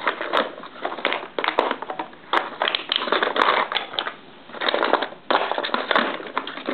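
Crunching and crinkling of cardboard being handled, in repeated bursts about a second long with sharp clicks among them.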